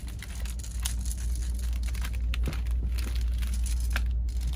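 Rustling and crinkling of items being handled, with scattered small clicks, over a steady low hum.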